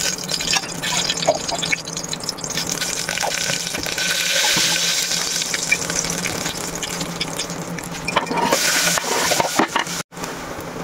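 Cooking oil pouring into an aluminium pressure cooker, then a steady hiss with scattered crackles as it heats on the stove. The sound cuts off briefly about ten seconds in.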